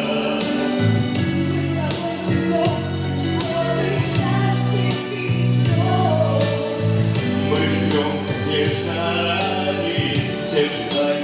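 Vocal ensemble singing a song together over instrumental accompaniment with a steady beat.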